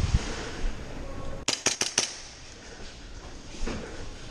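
Airsoft pistol firing a rapid string of about four shots, sharp snapping cracks over about half a second, beginning about a second and a half in.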